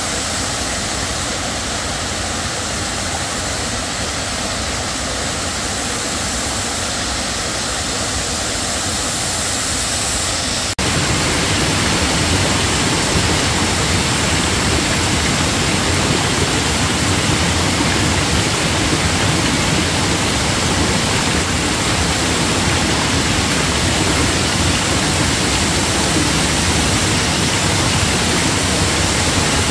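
Shallow rocky forest stream running over stones, a steady wash of water noise. About ten seconds in it changes abruptly to a louder, fuller sound of flowing water.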